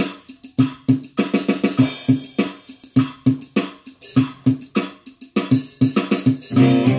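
Instrumental rap backing beat: drum hits in a steady rhythm with a pitched bass note, and sustained chords coming in near the end.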